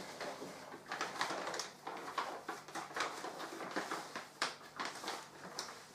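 Plastic and paper packaging rustling and crinkling in a string of short, irregular crackles as a parcel is unwrapped by hand.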